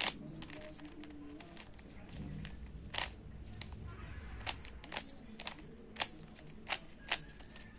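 A 3x3 Rubik's cube's plastic layers being turned by hand. It gives several sharp clicks at uneven intervals, most of them in the second half.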